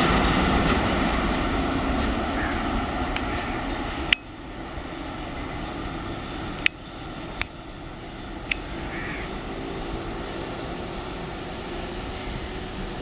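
Twin WAG-5 electric locomotives running past, a steady drone and rumble of the locos and their wheels on the rails that fades over the first few seconds. About four seconds in it drops to a quieter, steady distant rumble of the locomotives, broken by a few sharp clicks.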